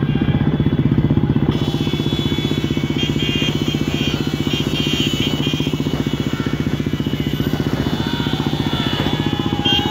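A pack of motorcycles and scooters running together at a steady speed. The nearest engine gives a close, even drone with a fast regular beat.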